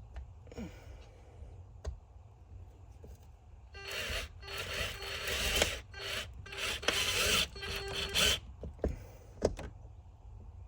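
Battery-powered drill run in several bursts over about four seconds, driving into the van's ceiling with a steady motor whine under a harsh grinding, with a few light knocks before and after.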